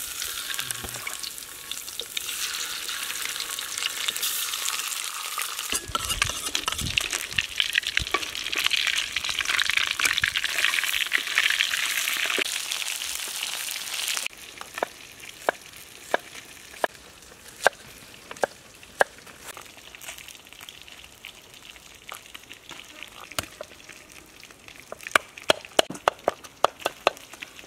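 Whole Boesemania fish frying in hot oil in a wok, a loud steady sizzle. About halfway through it gives way to a knife chopping garlic on a wooden board: sharp single knocks that quicken into a fast run of chops near the end.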